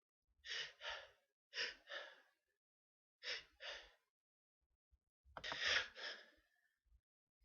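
A person sneezing in a series of short double bursts. Three quick pairs are followed by a longer, louder sneeze about five and a half seconds in.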